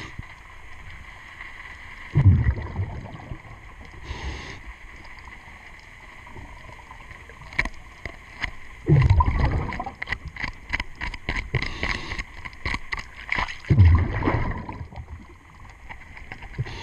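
Diver's breathing regulator underwater: a hiss on each inhalation, then a rumble of exhaled bubbles, repeating every four to five seconds. Through the middle, a quick run of clicks and scrapes from a hand tool working the zinc anode on the hull.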